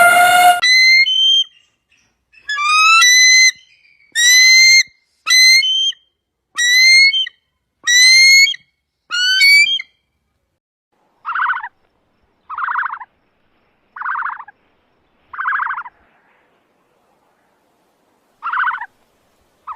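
A run of about seven high, whistled animal calls, each bending in pitch. After a short pause comes a run of six shorter, lower calls spaced roughly a second or more apart.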